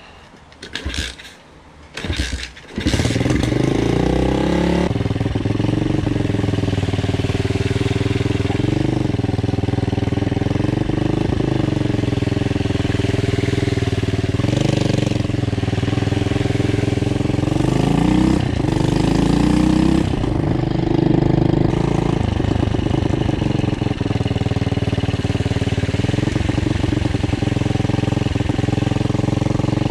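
Pit bike's single-cylinder engine starting about three seconds in, after a few short knocks, then running loudly while the bike is ridden. Its revs rise and fall several times.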